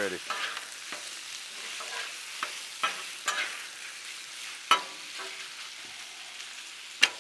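Diced chicken thighs sizzling on a hot Blackstone flat-top griddle while two metal spatulas scrape and clack against the steel cooktop as the meat is tossed with seasoning. A steady sizzle runs under a handful of sharp spatula clacks, the loudest near the end.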